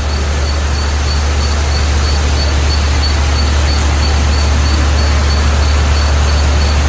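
Steady rushing noise with a deep rumble, recorded on a flooded railway platform, with a faint high-pitched beep repeating several times a second.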